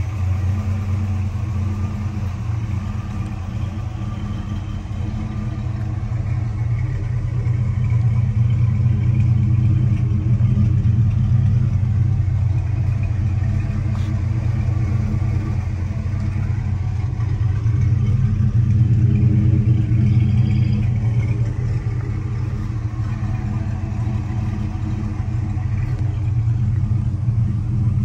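The 1979 Pontiac Trans Am's Oldsmobile 403 V8 idling steadily, getting louder for a few seconds twice.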